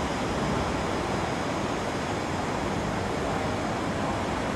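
Steady rushing noise of an SMRT C751B metro train standing at the platform with its onboard equipment running.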